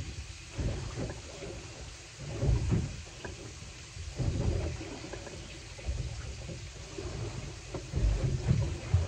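Sea water slapping and sloshing against the hull of a small boat, in irregular low thumps every second or two.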